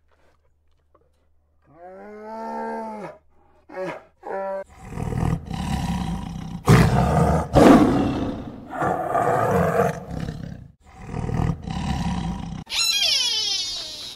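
A large animal calling: a drawn-out call about two seconds in and a couple of short ones, then from about five seconds in a run of loud, harsh calls one after another, the loudest two near the middle. Near the end a different, higher call rises and falls.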